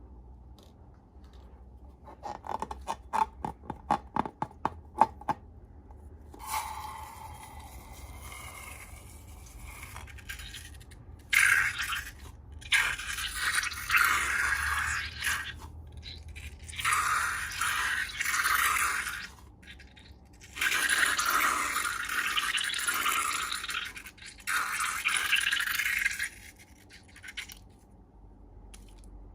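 Slime-making handling sounds: a quick run of sharp clicks about two seconds in, then several bursts of scraping lasting a few seconds each.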